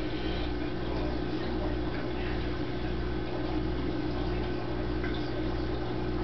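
AquaClear 802 aquarium powerhead running at full flow with a steady motor hum, water churning and gurgling through the DIY fluidized sand bed filter. A low hum pulses about every half second under the sound of the water.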